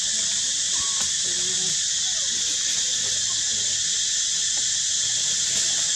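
Steady, high-pitched insect chorus droning without a break from the surrounding forest.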